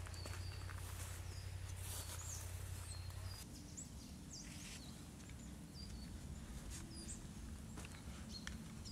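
Small birds chirping, short curved calls scattered through, over a low steady rumble of outdoor background noise that eases a little about three and a half seconds in.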